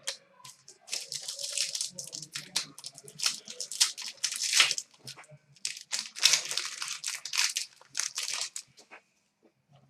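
Trading-card pack wrappers tearing and crinkling as hockey card packs are ripped open and handled, in a run of short rustles with a brief quiet gap near the end.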